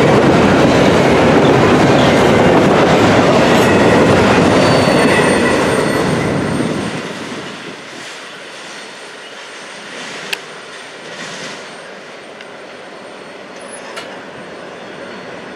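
Intermodal container cars rolling past on the rails with a clickety-clack of wheels over joints and a faint high wheel squeal. The sound fades away about halfway through as the last cars go by, leaving a quiet background with two sharp clicks near the end.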